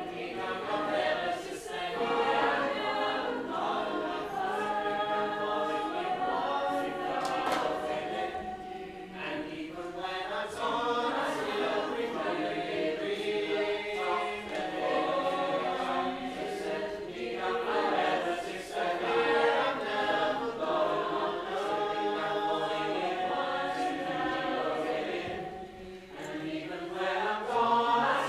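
A group of voices singing together in harmony, choir-like, with brief lulls about nine and twenty-six seconds in.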